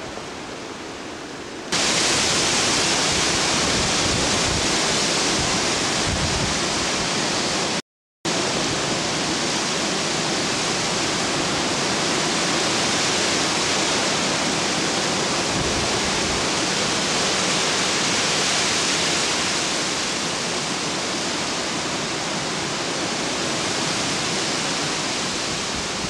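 Hurricane Sandy's storm wind rushing through trees and buffeting the microphone: a loud, steady rush that starts abruptly about two seconds in, after a quieter stretch. It drops out briefly about eight seconds in.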